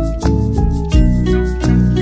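Background music with a steady beat: held notes over a heavy bass line, with regular drum hits.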